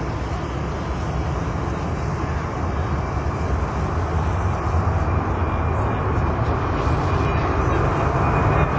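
Boeing 747's four turbofan engines at takeoff thrust as the jet rolls down the runway toward the listener, a deep steady rumble growing louder.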